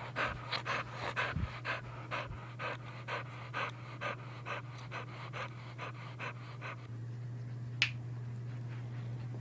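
English springer spaniel panting quickly and evenly, about three breaths a second, stopping about seven seconds in. A steady low hum lies underneath, with a single click near the end.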